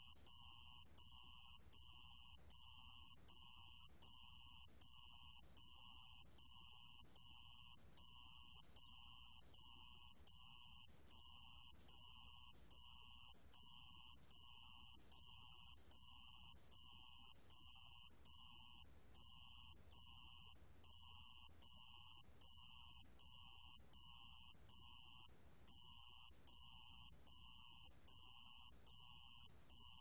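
Song of the 모래방울벌레, a small Korean ground cricket, recorded at 28 °C: high-pitched chirps just under a second long, repeated about once a second with short gaps.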